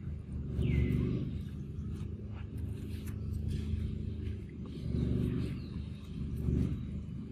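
Low rumble that swells and fades every second or two, with a short falling chirp about a second in.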